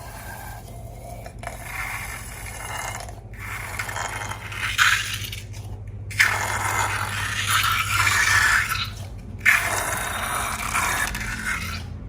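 Slime being mixed and scraped, in several bouts of scraping and crackling broken by short pauses.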